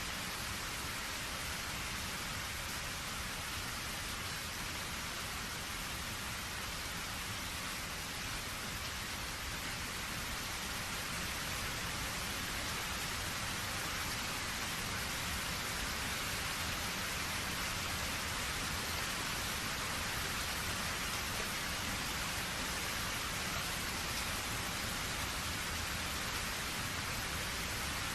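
Steady rain falling, an even hiss of many drops, growing slightly louder about halfway through.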